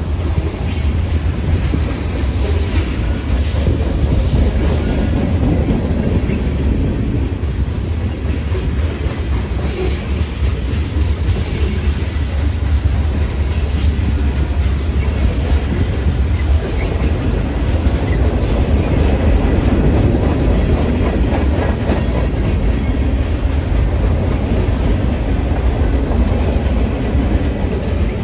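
Freight train of covered hopper and tank cars rolling past close by: a steady rumble of steel wheels on the rails, with a few sharp clicks scattered through it.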